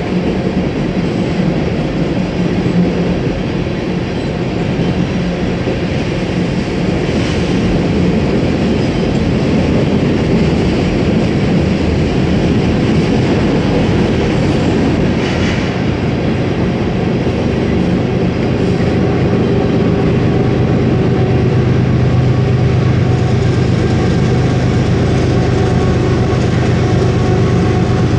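Southbound fuel train of tank cars rolling past on the rails, a steady loud rumble. A low, steady engine hum grows stronger in the last third.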